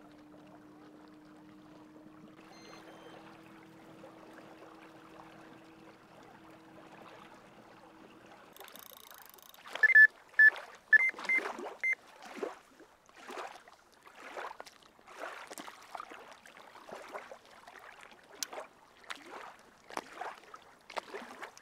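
A small electric boat motor hums steadily and faintly, then stops about eight seconds in. After that, small waves lap and splash at the shore among handling knocks. A carp bite alarm gives a quick run of short, high beeps about ten seconds in as a rod is set on the rod pod.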